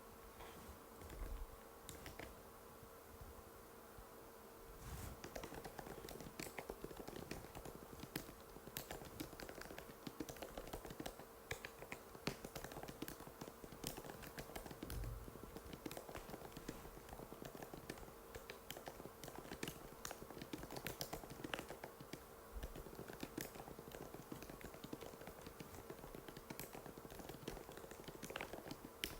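Typing on an Apple MacBook butterfly keyboard: short, shallow key clicks, a few scattered taps at first, then fast continuous typing from about five seconds in. A faint steady hum sits underneath.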